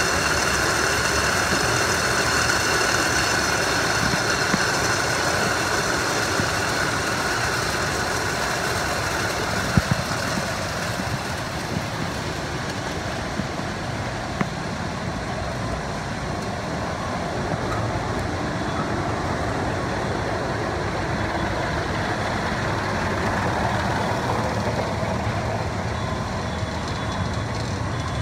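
Powered roller and belt conveyors running: a steady mechanical drone with thin high whines that fade over the first ten seconds or so, and a couple of short knocks about ten seconds in.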